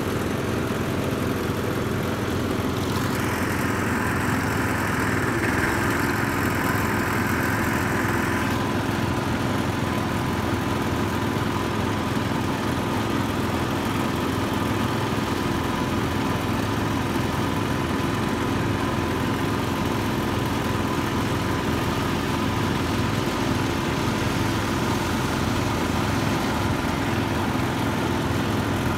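Vintage Sears garden tractors' small engines running steadily as the tractors drive past one after another. A brighter hissing sound joins in between about 3 and 8 seconds in.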